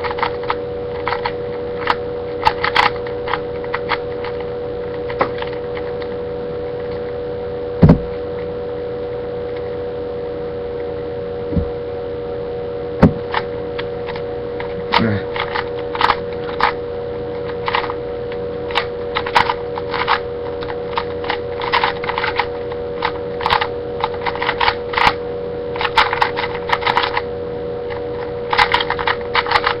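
A Rubik's Cube being turned fast in a speedsolve: runs of quick plastic clicks and clacks as the layers turn, over a steady electrical hum. Two sharp knocks stand out in the first half.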